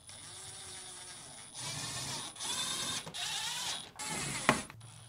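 Milwaukee M12 Fuel cordless driver running in four short bursts, its motor whine rising and falling, driving sheet-metal screws into a refrigerator's metal back cover. A single sharp click follows the last burst.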